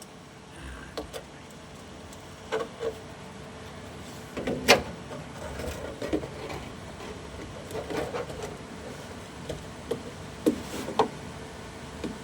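Scattered knocks and clunks of tools and equipment being handled under a car, with the loudest sharp knock about five seconds in.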